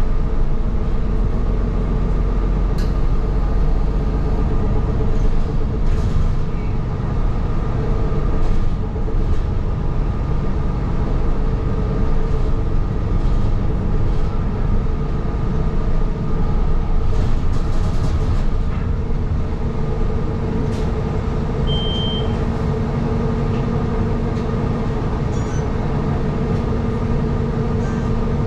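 Toronto transit city bus running, heard from inside the cabin: a steady drive drone with a hum of held tones, occasional rattles and knocks from the body, and one brief high beep about three-quarters of the way through.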